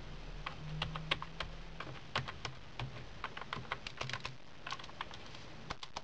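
Typing on a Defender Galileo 4920 USB keyboard: an irregular run of key clicks, quicker in the middle, which stop just before the end.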